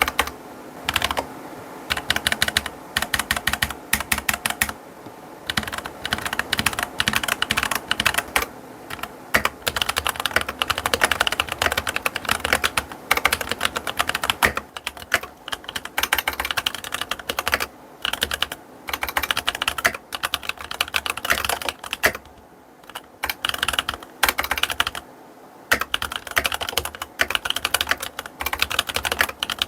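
Keychron K8 Pro aluminium mechanical keyboard with Keychron K Pro Mint switches being typed on: fast, continuous runs of keystroke clacks, broken by a few short pauses.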